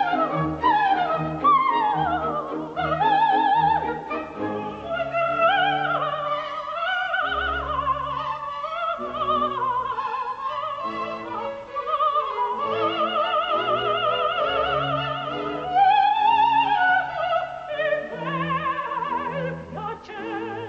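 Opera music: an orchestra plays quick falling phrases for the first few seconds, then a singer holds long notes with wide vibrato over the orchestra.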